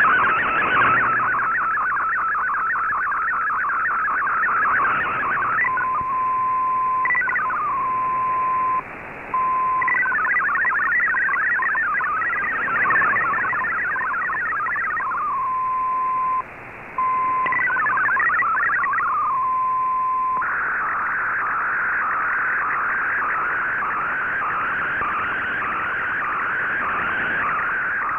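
MFSK64 digital data signal received over shortwave: a rapid warble of tones hopping within a narrow band, over radio hiss. Twice it settles into one steady tone for several seconds, each with a brief dropout, before the warbling resumes.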